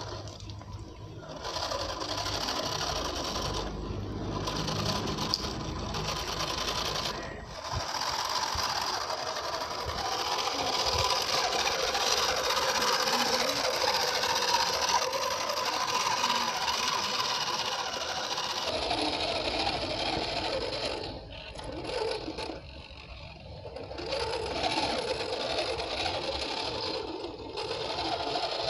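Homemade 1/10-scale RC dump truck's small electric motor and gearbox whirring steadily as it drives over gravel and stones, dropping away briefly a few times.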